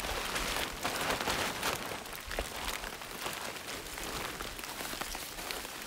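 Rain falling on foliage as it eases, mixed with the irregular crinkling of a black plastic tarp being handled.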